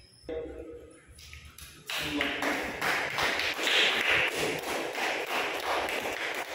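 A small group applauding: many hand claps start suddenly about two seconds in and keep going steadily.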